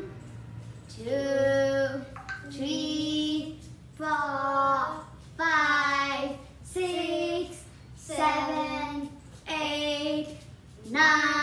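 A young girl singing unaccompanied, in a string of held phrases with short breaks for breath between them.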